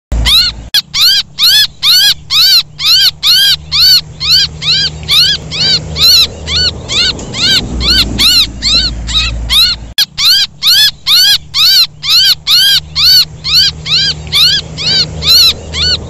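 Distress calls of a young bird crying for help: shrill chirps repeated rapidly at about three a second, each rising and then falling in pitch. There is a brief break about ten seconds in.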